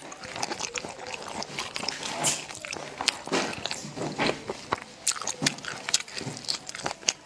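Close-miked eating of spicy snails: wet chewing, sucking and lip-smacking, broken by many irregular sharp clicks.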